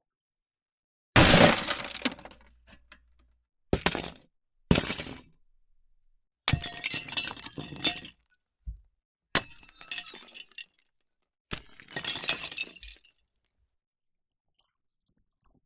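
A series of about six separate glass-breaking effects, each a sudden shattering crash trailing off into the tinkle of falling shards. The first, about a second in, is the loudest.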